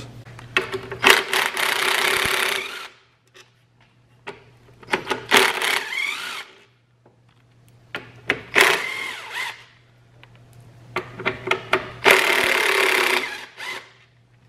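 Hitachi cordless drill driving a socket to back out small 10 mm bolts in four short runs of about two seconds each. The motor's whine rises and falls in pitch within each run.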